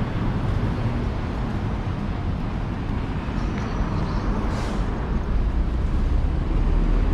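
City street traffic, with a heavy vehicle's low engine rumble growing louder near the end. A short hiss comes about four and a half seconds in.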